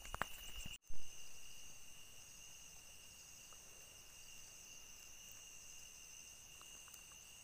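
Steady chorus of insects, several steady high-pitched trills at different pitches carrying on together. About a second in, the sound drops out for an instant and comes back with a brief loud bump.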